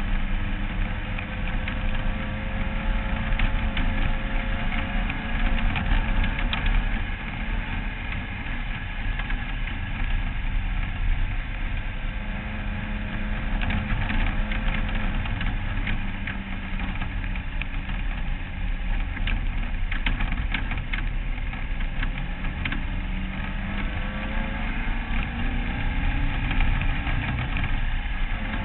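Off-road race car's engine running continuously under load, heard from a camera mounted on the car, its pitch wavering slightly as the throttle changes. Short rattles and clatters from the chassis come through as it runs over the rough dirt track.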